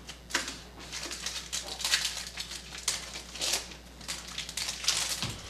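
Foil trading-card pack wrappers crinkling in the hands, in a run of short, irregular rustling bursts.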